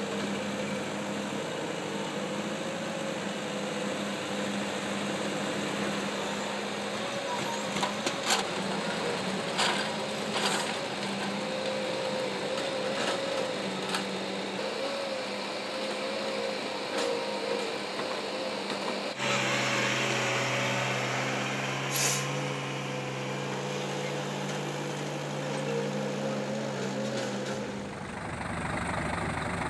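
Heavy diesel engines of logging trucks and a log-loading excavator running steadily, with several sharp knocks between about eight and fourteen seconds in. A hiss of air comes about twenty seconds in, and near the end the engine sound turns deeper.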